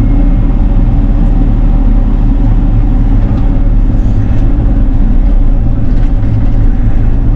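Bobcat E42 mini excavator's diesel engine running steadily.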